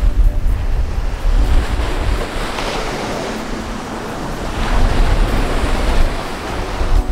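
Wind gusting across the camera microphone: a low, uneven buffeting rumble with a rushing hiss that swells twice, a few seconds apart.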